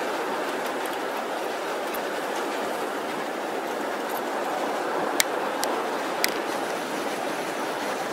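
Steady wash of small surf breaking on a sandy beach. A few sharp clicks come about five to six seconds in.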